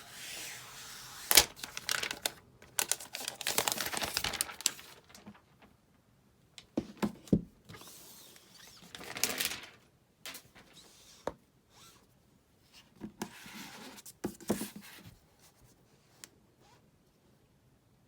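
Packaging being handled and unwrapped: rustling and crinkling in bursts, with sharp clicks and taps and a loud click about a second and a half in. It falls quiet for the last couple of seconds.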